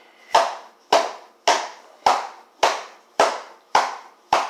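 Hands pounding an opened cardboard box of cornstarch, a sharp knock about twice a second in an even rhythm, packing the powder down into a hard, tight block.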